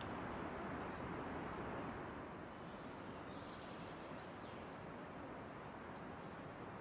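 Steady outdoor forest ambience, a soft even rushing noise that eases slightly about two seconds in, with a few faint short bird chirps at the start and near the end.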